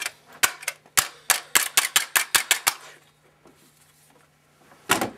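Stapler being pressed again and again: a quick run of a dozen or more sharp clicks for about three seconds, then one louder snap near the end.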